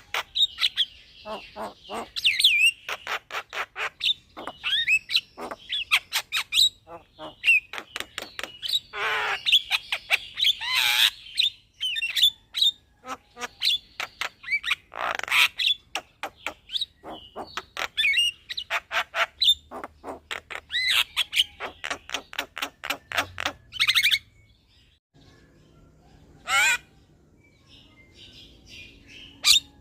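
Javan myna singing a long rolling song of rapid clicks, whistles and harsh squawks. It stops about 24 seconds in, and one more rising call follows a couple of seconds later.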